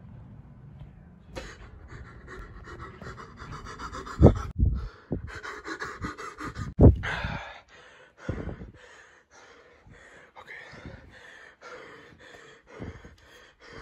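Quick, repeated breaths of a person hurrying with a handheld phone, mixed with handling noise. Two loud thumps come about four and seven seconds in.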